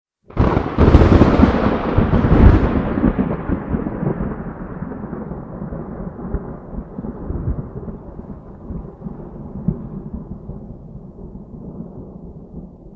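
A thunderclap: a sudden crack a fraction of a second in, a second loud peak about two seconds later, then a long rumble that slowly fades away.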